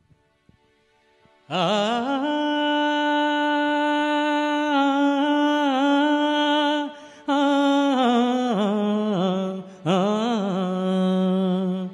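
A man singing solo into a handheld microphone: long held notes with a wavering vibrato, starting about a second and a half in and breaking twice for breath.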